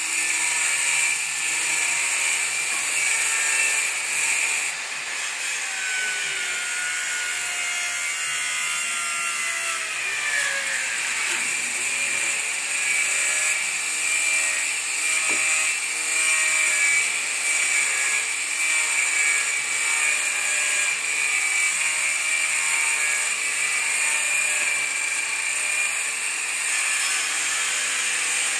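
Power tool running with a steady high whine, its pitch sliding down and back up around a third of the way in.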